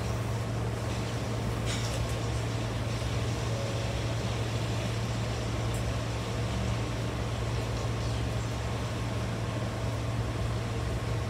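Steady low hum and hiss inside a Hankyu train car, even in level and without wheel clatter. The train is standing at the station with its air conditioning and electrical equipment running.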